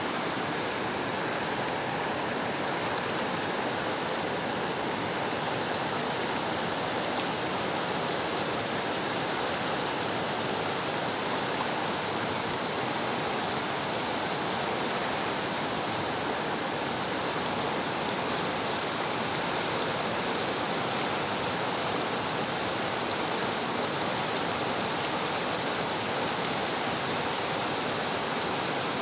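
Fast, turbulent river water rushing steadily over rocks in whitewater rapids.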